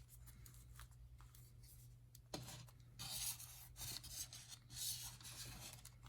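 Faint rubbing and handling noises of headphones and small plastic parts being moved about, with a soft tap about two seconds in, over a low steady hum.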